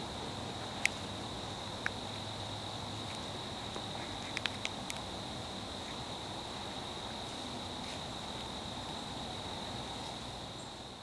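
Insects chirring steadily at one high pitch, cricket-like, over a soft outdoor hiss. There are a few sharp clicks, one about a second in, another about two seconds in, and a quick cluster of three or four a little before the middle.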